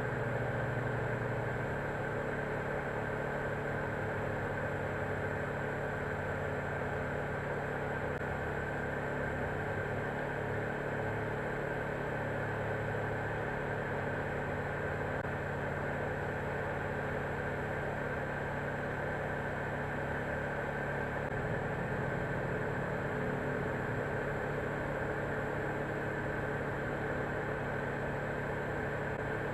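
A steady mechanical hum and whir, with a few fixed tones over a low rumble that shifts slightly now and then.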